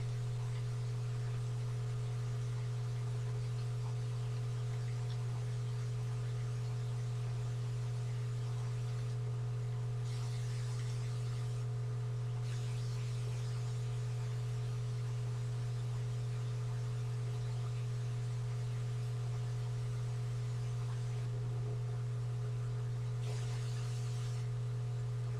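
Steady low electrical hum over a faint hiss, with a few fainter steady higher tones.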